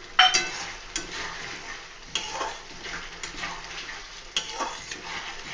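A metal spatula stirring a thick poppy-seed fish curry in an aluminium kadai, clinking against the pan about once a second with short ringing knocks, the loudest just after the start, over a soft sizzle of frying.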